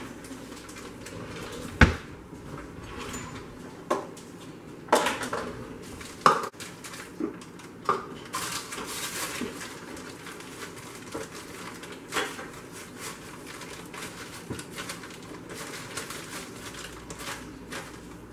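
Kitchen utensils and containers clattering: a string of separate knocks and clinks a second or two apart, the loudest about two seconds in, as things are pulled from a kitchen drawer and handled on the counter. A plastic bag rustles in the middle.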